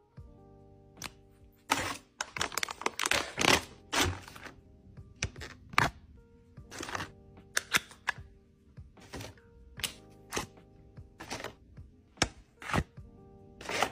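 Unboxing handling sounds over quiet background music: a burst of paper and cardboard packaging crinkling about two seconds in, then a string of single sharp clicks and taps as sample cards and small products are handled.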